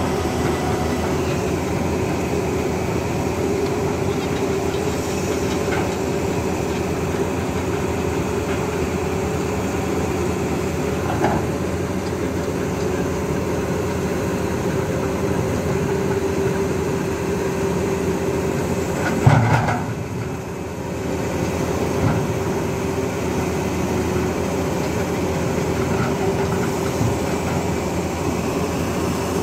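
A CAT hydraulic excavator's diesel engine running steadily under load as the boom and bucket swing, with a few clanks from the working machine, the loudest a heavy knock about two-thirds of the way through.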